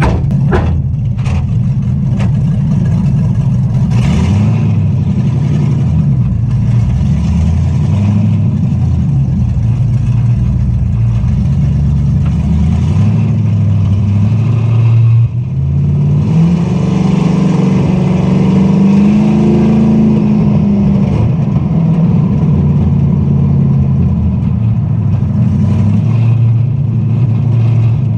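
A Dodge Dakota's swapped-in 5.3 L LM7 V8 running as the truck pulls away, heard from inside the cab. A few sharp clicks come about a second in; about halfway through the engine note briefly drops, then rises in pitch as the truck accelerates and settles again.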